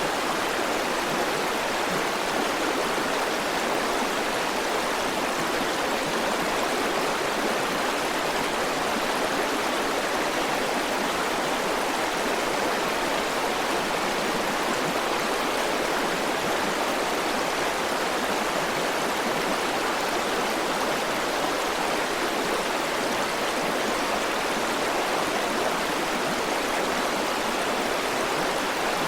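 River water flowing over rocks, a steady rushing with no change in level.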